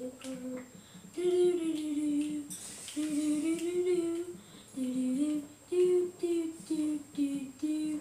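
A child humming a wandering tune in a string of held notes with short breaks.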